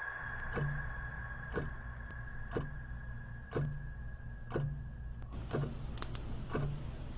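Clock ticking about once a second, each tick with a soft low thud, over a steady low hum. A steady high two-note tone sounds with it and cuts off about five seconds in.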